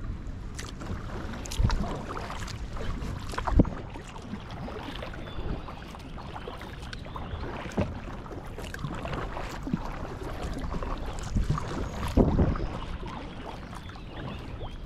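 Kayak paddling: paddle blades dipping and splashing in the river water, with dripping and a few sharper thumps, the loudest about three and a half seconds in.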